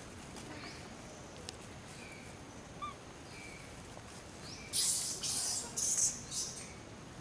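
Outdoor ambience with small birds chirping faintly now and then. About two-thirds of the way in, a run of loud, high hissing bursts lasts about two seconds.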